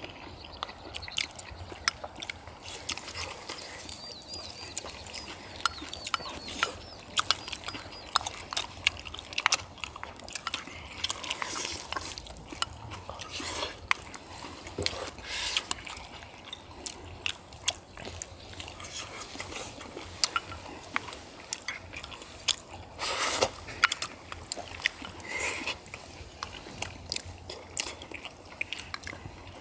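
Several people eating a spicy braise with chopsticks: steady close-up chewing with occasional louder slurps, and chopsticks clicking against rice bowls and the iron pan.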